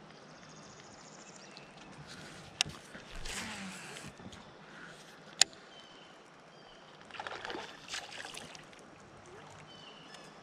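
Quiet river ambience around a fishing kayak: water lapping and sloshing, with two sharp clicks from handling a baitcasting rod and reel, the second about halfway through being the loudest sound.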